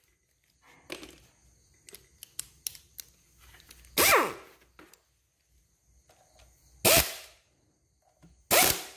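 Power impact gun driving in the cam sprocket bolts on a motorbike engine's camshaft, three short bursts a few seconds apart, each winding down in pitch as it stops, with small tool clicks in between.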